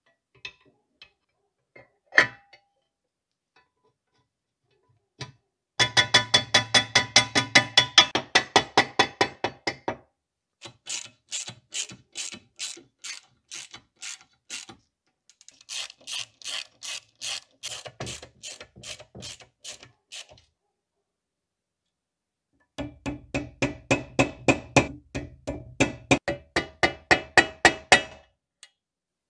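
Ratchet wrench clicking in four runs of rapid, even clicks, about seven a second, while tightening socket-head bolts on a small lathe. A single sharp click comes about two seconds in.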